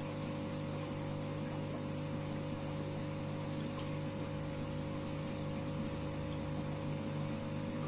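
Aquarium pump humming steadily, with the hiss and bubbling of water moving in the tank.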